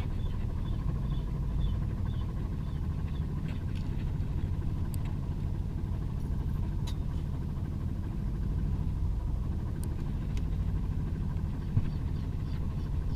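Fishing boat's engine running with a steady low rumble, with a few faint clicks and light high chirps over it.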